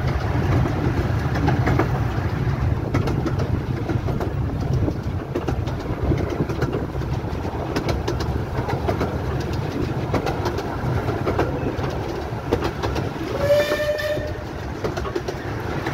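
A 15-inch gauge miniature railway train hauled by the steam locomotive Northern Chief running along, with a steady rumble and wheels clicking over rail joints. Its whistle sounds once, briefly, near the end.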